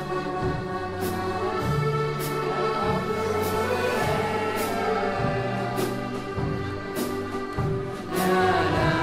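Accordion orchestra playing a slow tune in held chords, its bass notes stepping every second or so, with a light percussion stroke about once a second.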